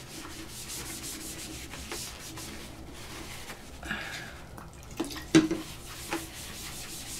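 Paper towel rubbed in strokes over a wet palette's stained white surface with rubbing alcohol, wiping the paint stain off. A sharp knock comes a little past halfway.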